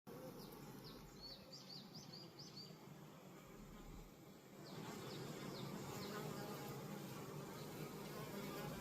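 Honeybees buzzing in a steady hum that grows louder about five seconds in, with a small bird chirping a quick run of high notes in the first few seconds.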